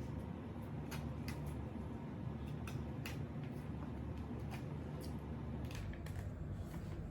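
A person eating: chewing, with scattered short clicks and smacks, over a steady low hum.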